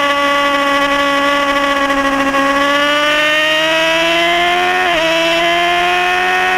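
Triumph Daytona 675's three-cylinder engine heard from the rider's seat under hard acceleration. Its pitch climbs steadily, dips briefly at an upshift about five seconds in, and climbs again in the next gear.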